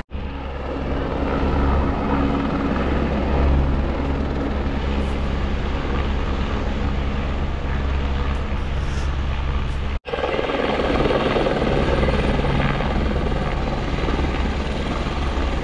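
Search and rescue helicopter's engine and rotor running steadily with a low, even drone, cut off for an instant about ten seconds in.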